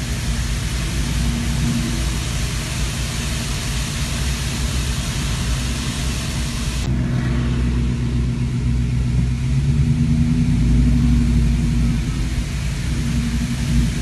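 Steady car engine hum and road noise under a bright, rushing hiss. About seven seconds in the sound cuts to a duller, engine-heavy recording, whose pitch rises briefly near ten seconds.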